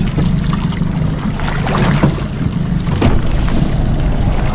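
Small fishing boat at sea: a steady low hum from the boat's engine, with wind on the microphone and water lapping against the hull.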